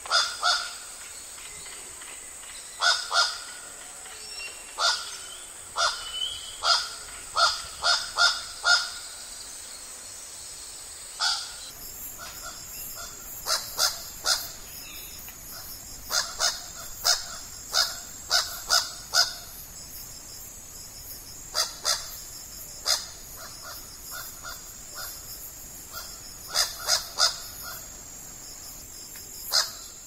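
Long-billed crow (Corvus validus) calling: short, harsh calls at irregular intervals, given singly or in quick runs of two to five, over a steady high-pitched hiss.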